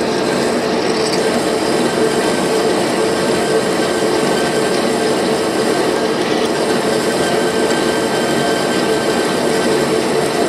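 Metal lathe running steadily while a cutting tool turns an ISO 30 tool spindle under flood coolant: an unbroken mix of machine hum and cutting noise.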